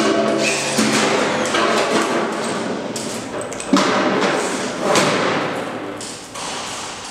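Top cover of a high-speed PVC roller door's roller housing being swung shut and pressed into place, with knocks and rattles of the panel. There is a sharp thud a little under four seconds in and another about a second later.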